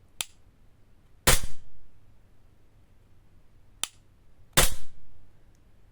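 ASG CZ P-10 C CO2 airsoft pistol firing twice, each shot a sharp pop with a short decay, about three seconds apart. Each shot comes shortly after a light click as the trigger is pressed to the wall.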